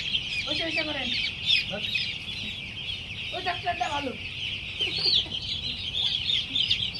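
A flock of hundreds of young chicks peeping constantly, a dense chorus of short, high chirps.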